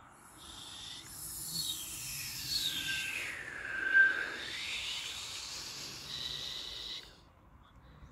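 Electronic whooshing sweep: airy hiss with several gliding tones that slide down to a low point about halfway through, then drift back up, before it cuts off near the end.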